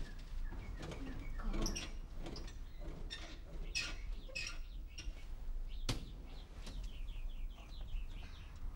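Small birds chirping, with a quick run of chirps in the second half. Rustling and soft knocks come from someone moving about and getting out of bed, with one sharp click about six seconds in.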